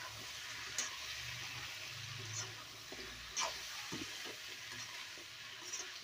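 Yellow pumpkin cubes and boiled field beans being stirred with a ladle in a kadai, frying with a steady sizzle, with a few sharp scrapes of the ladle against the pan.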